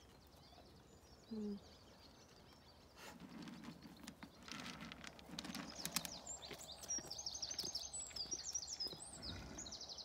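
An alpaca gives one brief hum about a second and a half in. From about three seconds on come rustling and clicking sounds, and small birds chirp through the second half.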